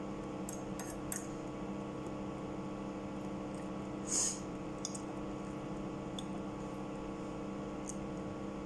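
Eating sounds: a fork clicking and scraping on a plate of noodles, with one louder scrape about four seconds in, over a steady background hum.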